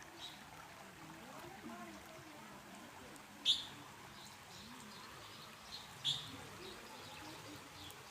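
A bird chirping: two short, sharp high chirps about three and a half and six seconds in, with fainter chirps between them, over a quiet outdoor background.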